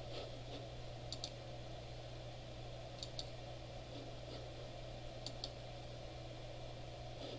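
Computer mouse button clicking: three pairs of short, sharp clicks about two seconds apart, over a steady low hum.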